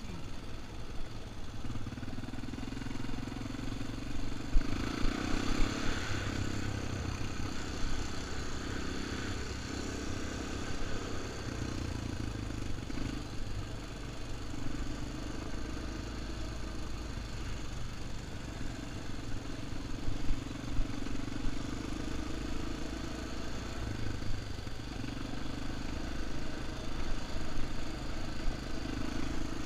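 Quad ATV engine running while riding a dirt trail, its sound swelling and easing as the throttle changes. A rushing noise comes in briefly about five seconds in, and there are scattered knocks.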